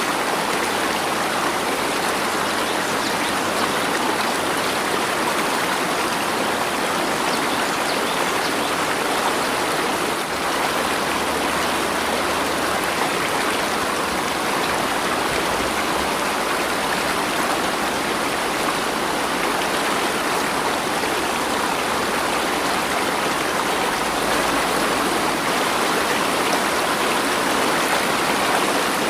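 Flowing water rushing steadily, an even hiss with no separate drops, splashes or thunder.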